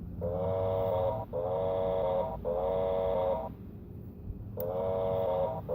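Vintage battery-operated toy Santa Fe train station playing its electronic sound effect: a pitched tone about a second long, repeated three times back to back, then a pause of about a second, then the tone again twice.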